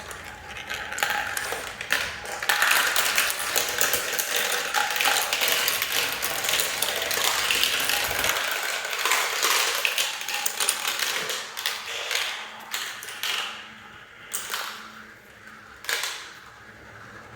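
Marbles rolling and clattering down a marble run: a dense stream of clicks and rattles that thins out to a few separate clicks near the end.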